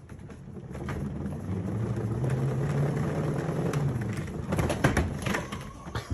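A low motor hum that swells over a couple of seconds and then fades, followed by a few sharp knocks near the end.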